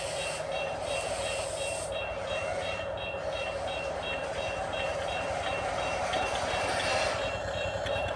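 Radio-controlled model machinery running with a steady whirring drone, over a short high beep repeating about four times a second.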